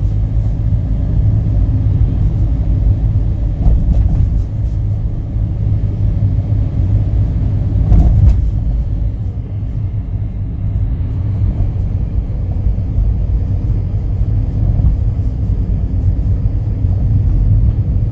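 Kia Ray's high-mileage three-cylinder engine running with a loud, heavy low rumble, a tiller-like racket that shows up in cold weather and on the accelerator and fades once the engine warms; the owner fears the engine may soon stop. A couple of brief louder knocks stand out about 4 and 8 seconds in.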